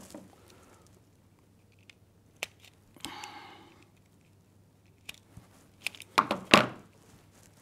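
Self-adjusting wire stripper working on the ends of a mains cable: a few light clicks and a short rustle of the cable, then two loud sharp clacks close together near the end as the tool's jaws snap shut and spring open on the wires.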